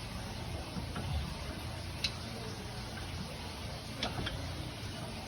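A few sharp, isolated metallic clicks and a soft knock from hand tools as the brake caliper bolts are screwed back in.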